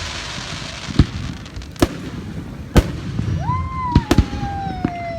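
Aerial fireworks display: loud bangs go off about once a second over a low rumble. A little over three seconds in, a whistling shell shrieks, its pitch rising sharply and then sliding slowly down.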